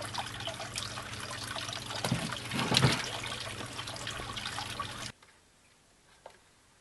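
Water trickling steadily in an outdoor terrapin tank, with a louder splash about two and a half seconds in as a diamondback terrapin is let go into the water. The sound cuts off about five seconds in to near silence.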